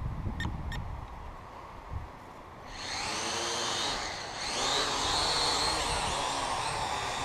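Syma X8W quadcopter's four motors and propellers spinning up with a sudden high whine and buzz about three seconds in, the pitch dipping and rising as it lifts off and flies. Before that, only a low rumble.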